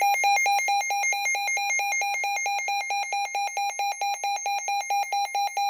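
Electronic emergency alert tone: a loud, single-pitched beep repeated rapidly and evenly. It is the attention signal that comes before a broadcast severe thunderstorm warning.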